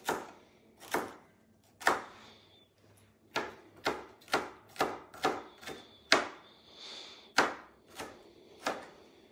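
Kitchen knife chopping a bell pepper on a cutting board, about fourteen separate strikes at an uneven pace of one to two a second.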